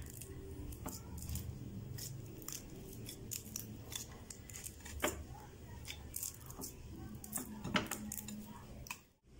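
Clear glitter slime being pressed and poked with fingers: irregular sticky clicks and small pops, a few louder ones about five seconds in and near the end.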